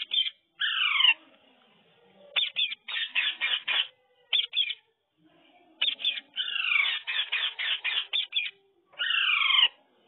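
Indian ring-necked parakeets calling: two harsh screeches that slide downward in pitch, one near the start and one near the end, with fast runs of short, sharp chattering notes between them, about five or six a second.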